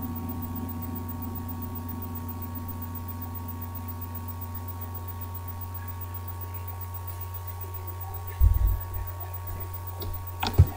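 Steady low electrical hum with a few faint steady tones above it. A dull thud about eight seconds in and a few sharp clicks near the end.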